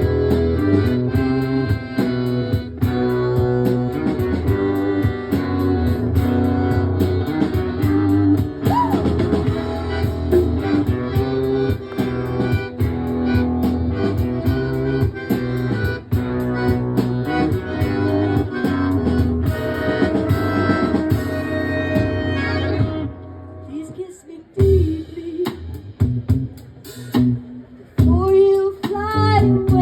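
Live band playing an instrumental passage led by plucked guitar, stopping abruptly about 23 seconds in. After that come quieter scattered sounds, and a voice near the end.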